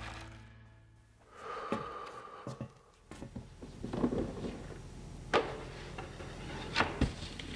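Background music fades out. Then a snowboard scrapes over snow and grinds along a metal stair handrail, with two sharp clacks a little past halfway and near the end.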